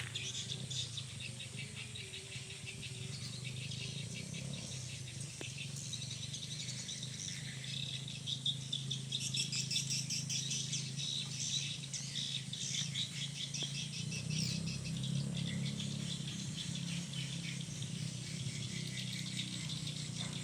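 Dense, rapid twittering of many swiftlets, busiest in the second half, over a steady low hum.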